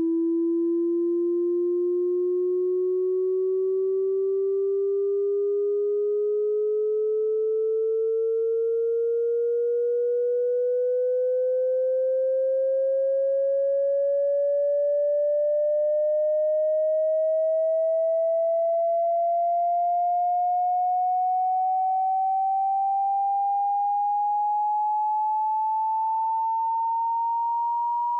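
Electronic sine tone gliding slowly and evenly upward in pitch, rising well over an octave, with a faint higher overtone above it: a sine sweep.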